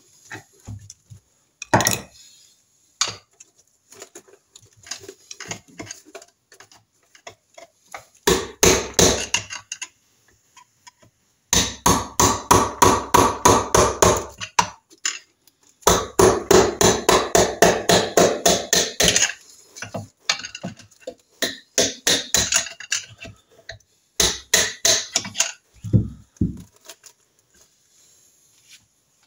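Quick, light hammer taps on a large screwdriver used as a drift between the crankshaft flange and a Norton Commando's aluminium crankcase, easing the cases apart. The taps come in several fast runs of a few seconds each, with short pauses between.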